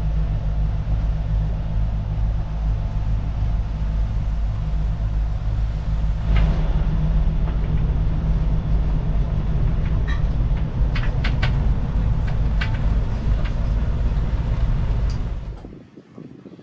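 Boat engine running with a steady low rumble, a few light clicks over it, cutting off sharply near the end.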